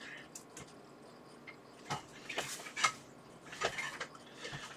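Scattered small clicks and taps of hand tools and parts being handled on a workbench, with a few sharper clicks in the middle.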